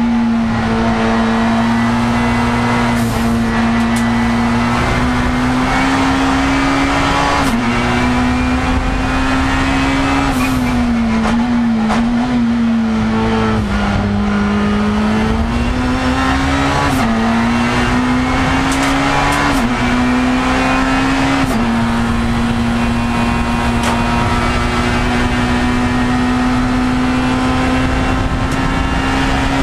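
Race car engine heard from inside the cockpit, running hard at high revs. The note climbs and then drops suddenly at several gear changes, sags for a few seconds midway, then holds steady over the last several seconds.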